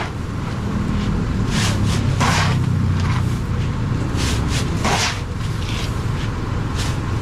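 An engine running with a steady low rumble, with several short hissy bursts of noise over it.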